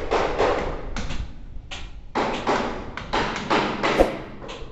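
Irregular knocking and tapping from construction work inside the unfinished building, a run of sharp knocks with one louder crack about four seconds in.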